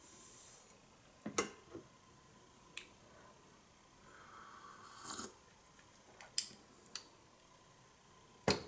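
Handling of a ceramic mug: a few light knocks and clicks as it is lifted and set down on a table, and a soft sip of tea from it about halfway through, with a louder knock near the end.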